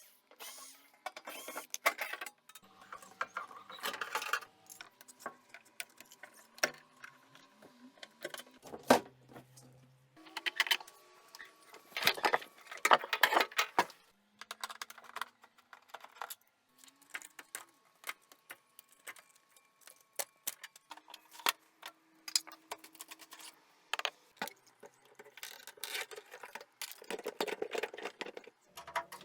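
Metal tools and parts clinking, knocking and scraping at an uneven pace, with brief ringing tones and a few short whirring glides, typical of hands-on appliance repair work while bearings are replaced.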